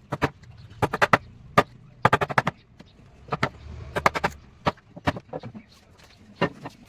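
Irregular sharp knocks and taps on wood, some coming in quick clusters of two to four.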